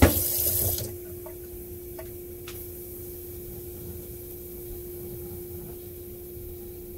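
Kitchen tap running, then shut off with a knock just under a second in; afterwards a steady low hum with a few light clicks.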